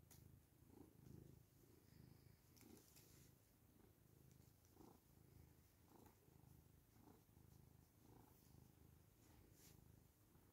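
Domestic cat purring softly and steadily while its head and chin are rubbed. The low purr swells and eases about once a second with its breathing.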